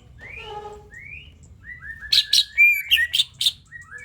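Cucak ijo (green leafbird) singing: a few rising chirps, then, about two seconds in, a louder run of sharp notes and short whistled glides.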